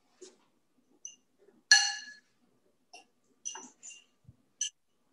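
Glass bowl clinking as mango chunks are tipped out of it into a blender jar: several short, ringing clinks spread over a few seconds, the loudest one about two seconds in.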